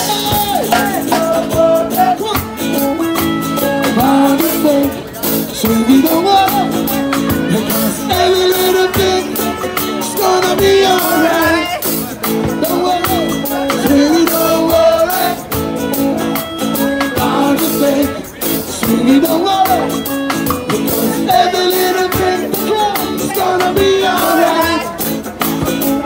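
Live reggae band playing: a man sings the lead over acoustic guitar, hand drum and drum kit, in a steady rhythm.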